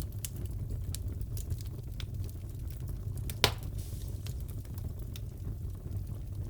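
Fireplace burning: a steady low rumble of flames with scattered sharp crackles, and one loud pop about three and a half seconds in.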